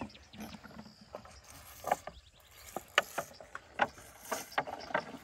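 Elephant calf drinking milk from a plastic bottle held up in her trunk: a string of irregular sharp clicks and squeaks from the bottle as she sucks and tips it.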